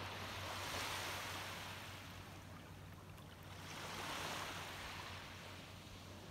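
Small waves washing up on a sandy beach. Two swells of surf rise and fade, about three and a half seconds apart.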